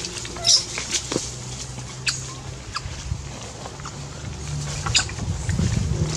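Young macaques giving short, high squeaks amid scattered clicks and scuffles as they clamber on a bamboo rail, over a low steady hum.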